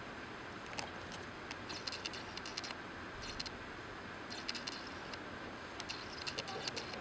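Quiet auditorium with a steady hiss, broken by three short spells of faint high clicking and rustling, about two, four and a half, and six seconds in.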